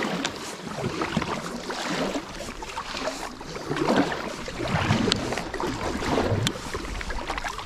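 Kayak paddle strokes: a Pelican paddle's blades dipping and pulling through choppy lake water, each stroke a swell of splashing and dripping, about every second or so.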